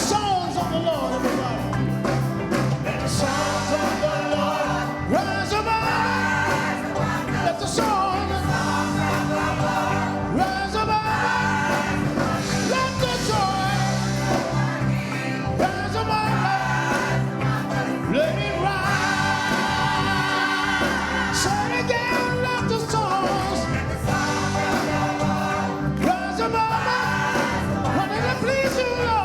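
Gospel worship music: singing with vibrato held over sustained instrumental chords, at a steady level.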